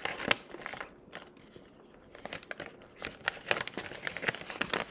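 A folded paper LEGO instruction leaflet being unfolded and handled, crinkling and rustling in irregular crackles, busiest in the second half.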